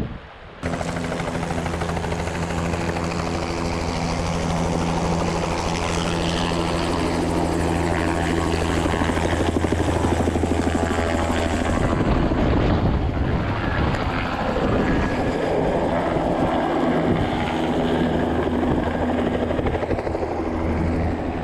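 Helicopter flying low overhead: a steady rotor and turbine sound that comes in suddenly, its highest hiss falling away a little past halfway.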